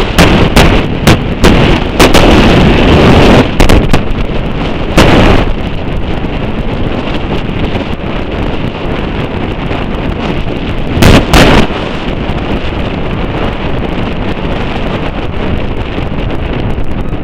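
Wind buffeting the microphone of a camera riding in a moving vehicle, with heavy clipped gusts through the first five seconds and again briefly about eleven seconds in, over steady road noise.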